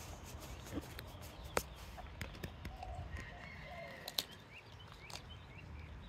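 Husky/Keeshond mix dog chewing a raw chicken foot, its teeth crunching through the small bones in irregular sharp cracks, the loudest about a second and a half in and another pair near the middle.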